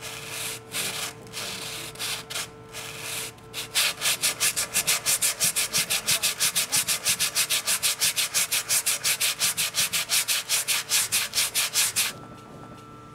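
Sandpaper rubbed by hand over the oak of a wine barrel's head and chime, smoothing down a chime-leak repair. It starts with a few uneven strokes, then settles into fast, even back-and-forth strokes at about five a second, which stop suddenly near the end.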